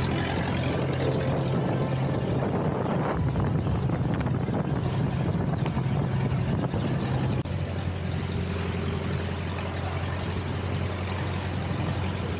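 Boat's engine running steadily underway, a low drone under a constant rushing noise. The sound shifts abruptly about seven seconds in.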